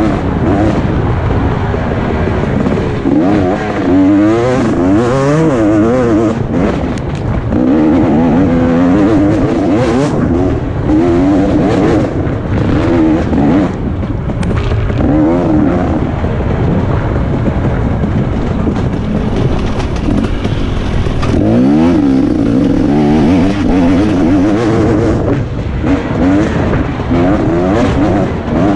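2017 KTM 250 XC-W single-cylinder two-stroke dirt bike engine, heard from on board while riding. The revs rise and fall over and over as the throttle is opened and chopped.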